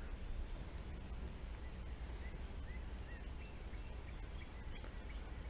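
Faint, scattered bird chirps, with a brief pair of high notes about a second in, over a steady low rumble.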